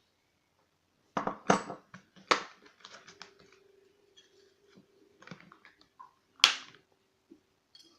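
Small metal clicks and clinks of a euro cylinder lock being handled and taken apart, irregular, with one sharp click a little after six seconds the loudest.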